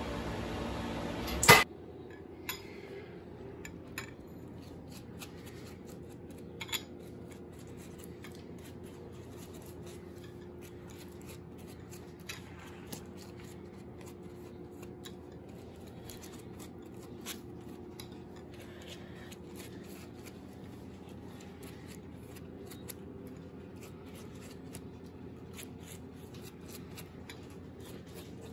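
Silicone pastry brush dabbing and stroking egg wash onto shaped sweet-bread dough on a parchment-lined baking tray: faint scattered clicks and rustles of the brush on dough and paper. A steady hum before it cuts off with a loud click about a second and a half in.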